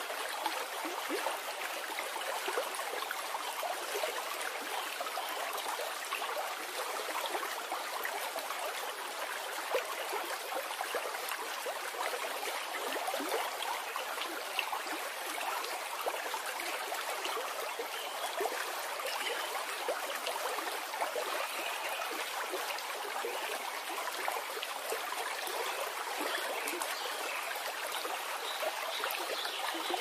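Stream water running steadily: an even, unbroken wash of water sound with small splashy flecks in it.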